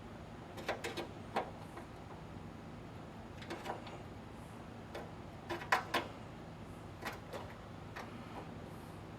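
A hand tool tapping and clicking against sheet steel at irregular intervals, some taps in quick pairs or clusters, as the lip of a Model A trunk lid's inner panel is bent back up.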